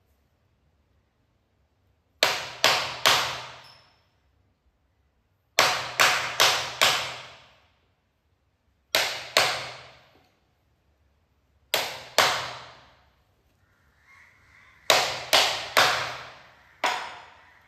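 Hammer striking a chisel driven into a wooden board: sharp, slightly ringing strikes in quick groups of two to four, with pauses of a second or two between groups.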